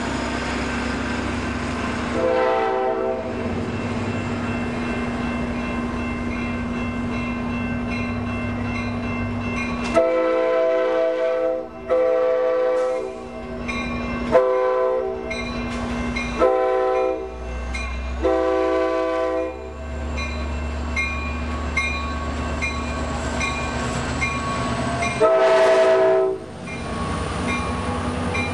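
A Nathan K5LA five-chime air horn on an F59PHI diesel locomotive sounding a series of blasts, one short blast about two seconds in, then a run of five long and short blasts and a last one near the end, the chord sounding clean with no squeal. The train rumbles steadily underneath.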